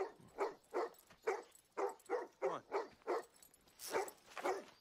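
German Shepherd barking repeatedly, about two sharp barks a second.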